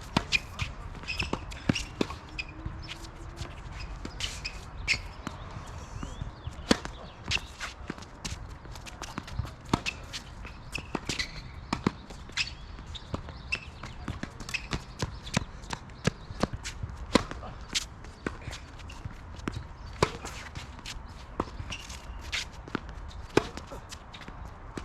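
Tennis play: sharp pops of rackets striking the ball and the ball bouncing on court, irregularly spaced, with footsteps and shoe scuffs between them.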